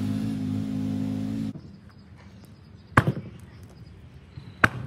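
An engine runs steadily, then cuts off abruptly about a second and a half in. Then come two sharp sledgehammer blows, about a second and a half apart.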